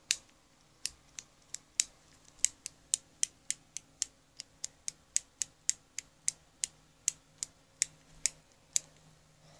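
A run of short, sharp clicks, about three a second and unevenly spaced, from small hard objects being clicked or tapped together by hand.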